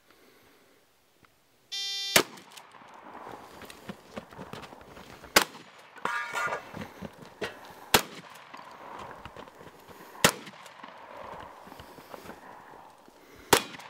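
A shot timer's start beep, then five 12-gauge shotgun blasts spread over about twelve seconds, a few seconds apart, with handling and movement noise between shots.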